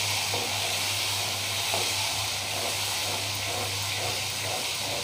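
Tomato puree and onions sizzling steadily in hot oil in a non-stick kadhai, stirred with a wooden spatula, over a low steady hum.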